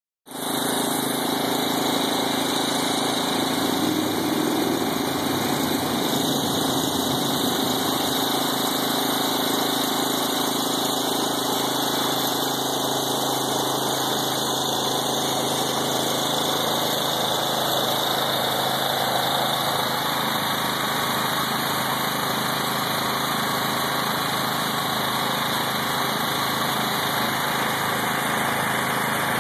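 Gas engine of a pressure washer running steadily at constant speed.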